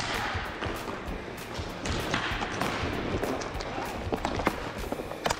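Inline skate wheels rolling and striding over plastic sport-court tiles, with scattered sharp clacks of hockey sticks and puck.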